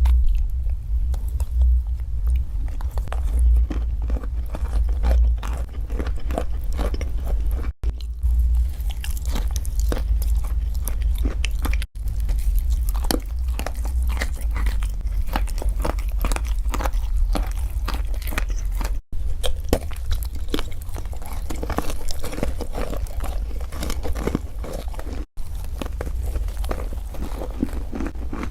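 Crunchy food being bitten and chewed close to the microphone: dense crackling crunches over a steady low rumble. The sound drops out for an instant four times.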